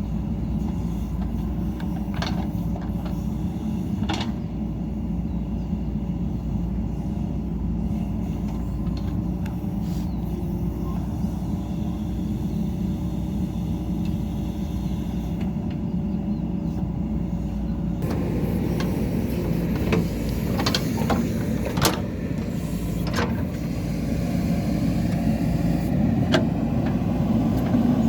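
JCB 3DX backhoe loader's diesel engine running steadily as the machine works. About two-thirds of the way through the engine note changes, and a series of sharp knocks and clanks follows.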